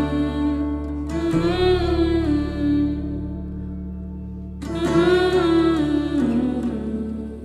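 Background music: a voice singing two long phrases over sustained guitar accompaniment.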